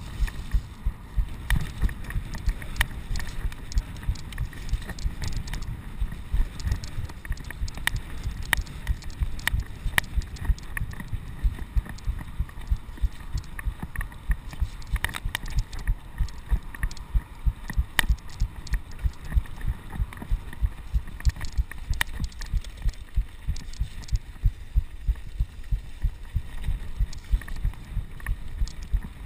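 Mountain bike rolling over a rough dirt trail: a rapid, uneven run of dull low thumps as the bike and rider are jolted over bumps, with sharp clicks and rattles scattered through it. The sound is muffled, as heard by a chest-mounted action camera.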